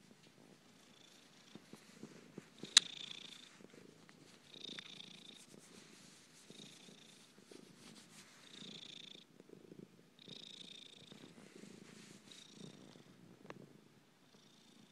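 Domestic cat purring while its belly is rubbed, in a rhythmic rise and fall with each breath, a sign of a relaxed, contented cat. A single sharp click sounds about three seconds in, and the purring fades near the end.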